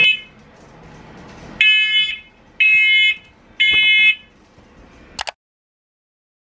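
Ceiling smoke alarm going off, set off by cooking on the stove: three high-pitched beeps about a second apart, then a short click and a sudden cut to silence.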